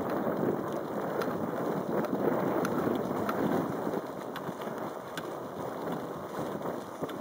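Wind rushing over the microphone of a camera on a moving bicycle, a steady dense noise, with a few faint irregular clicks.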